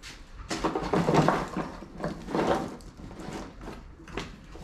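Handling noise from an engine wiring harness being rummaged over a cardboard box: irregular rustling and clattering of its loom and plastic connectors, with a sharp click about four seconds in.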